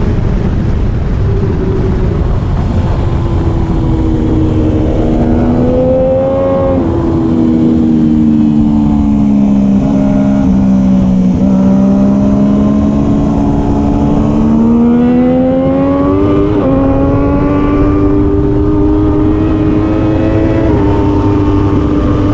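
Triumph Daytona 675R three-cylinder engine at racing speed. Its pitch climbs, sinks slowly for several seconds, then rises again, with sudden pitch jumps about seven and sixteen seconds in and near the end, over a steady rush of noise.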